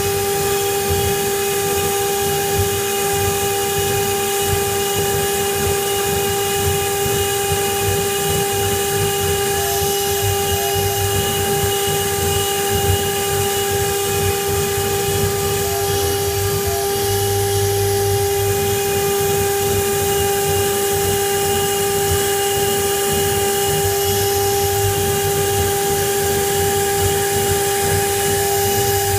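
Water-cooled spindle of a 1325 CNC router whining steadily while a fine engraving bit carves a relief into wood, with a steady hiss from the cutting.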